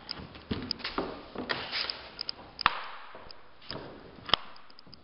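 Laminate stair nosing and tread boards being pressed and knocked into place on a stair step by hand: a string of irregular wooden taps and knocks, the sharpest about two and a half seconds in and again near the end.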